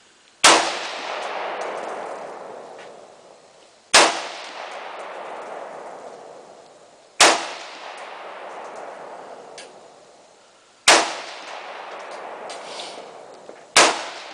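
AR-15 semi-automatic rifle firing five single shots, slowly and evenly paced about three to four seconds apart, each crack followed by a long echo that fades over two to three seconds.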